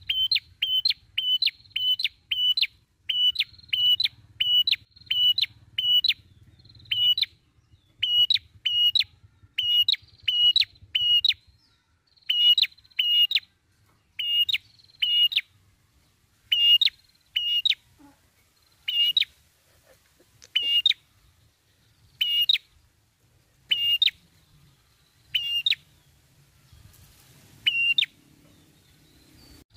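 Tailorbird (the 'prenjak kepala merah') calling a long series of short, sharp chirps, about two to three a second at first, then sparser and more irregular, with a short pause near the end.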